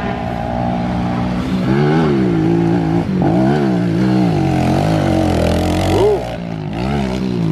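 Small four-stroke pit bike engine revving up and dropping back again and again as it is ridden down a dirt trail. It comes close about six seconds in, with a quick pitch swing as it passes, then revs on.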